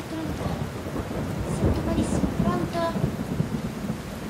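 A low rumble over a steady hiss, swelling to its loudest about a second and a half in, with a faint voice-like sound near the end.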